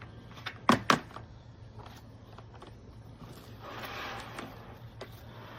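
Handling noise: three sharp clacks within the first second, then a soft rustling hiss in the middle.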